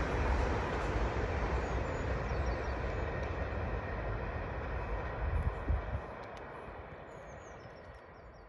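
Electric passenger train running across a tall brick railway viaduct, a steady rumble and rush of wheels on rail that fades as it draws away. The low rumble drops off about six seconds in and the sound dies down towards the end.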